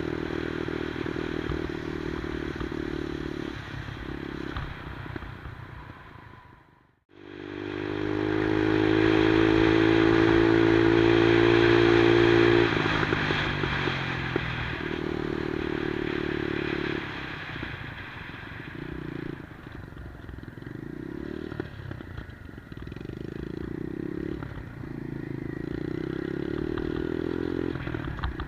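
A 110cc Monkey-style minibike's single-cylinder four-stroke engine running while ridden. The sound fades to nothing about seven seconds in, then returns loud at steady high revs for about five seconds. After that the revs drop and rise again and again.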